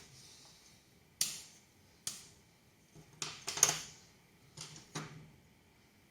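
Small hard parts and tools clicking and tapping on a workbench, about seven separate sharp clicks, the loudest a little past halfway, as a broken connector on an electronics board is dealt with.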